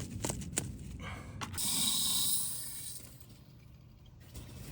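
A few sharp knocks, a rock driving plastic hold-down stakes into the soil over a drip hose, then about a second of loud hissing noise.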